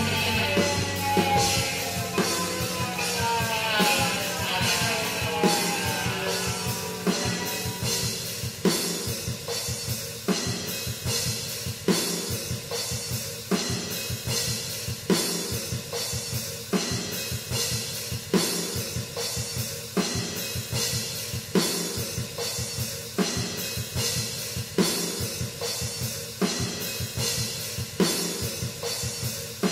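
Rock music with a steady drum-kit beat, bass drum, snare and cymbals. Sliding pitched tones fade out over the first few seconds.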